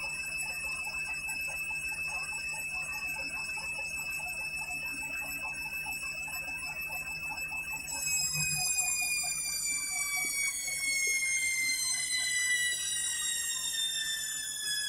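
Candy washing machine's drum motor whining steadily during the 400 rpm final spin. About eight seconds in, the whine starts falling steadily in pitch as the drum spins down at the end of the spin.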